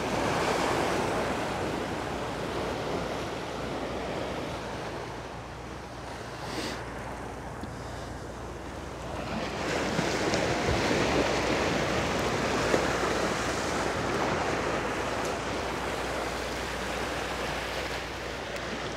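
Sea surf washing against the breakwater rocks, with wind buffeting the microphone. The wash swells at the start and again at around ten seconds.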